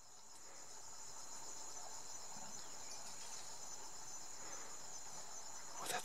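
Chorus of jungle insects: a steady, high-pitched pulsing trill that fades in over the first second.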